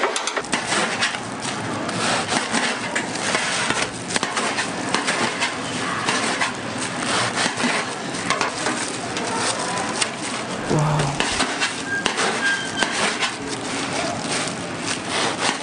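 A knife cutting through crisp, deep-fried breaded toast sandwiches, a continuous crackling crunch of the fried crust.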